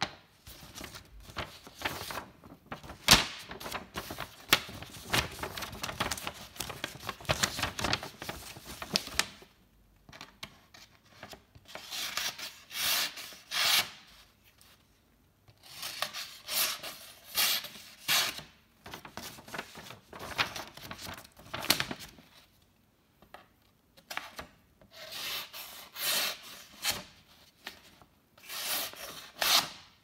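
OTF knife blade scraping and cutting in repeated rasping strokes. The scraping runs on with a few sharp clicks for about the first nine seconds, then comes in separate bursts of a second or two with short pauses between.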